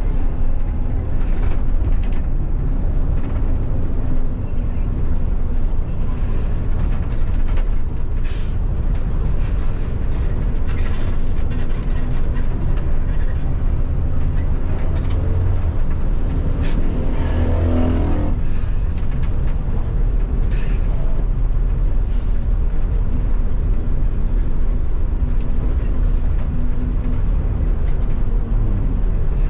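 Tour bus running along the road: steady engine and road noise, with the engine note briefly rising in pitch and falling back about halfway through.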